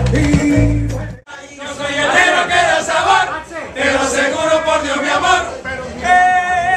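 Live band music with several men singing cuts off abruptly about a second in. A group of men then sing together in loud, overlapping voices, with little instrumental backing.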